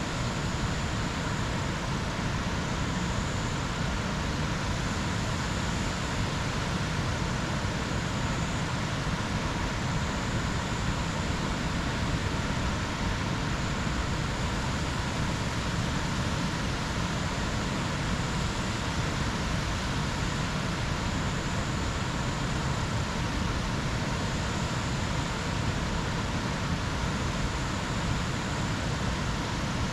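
Jungle ambience: a steady rushing noise with a faint high-pitched tone that swells and fades every couple of seconds.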